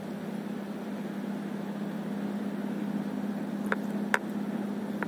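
Steady low hum with an even hiss, and three short sharp clicks or taps in the last second and a half.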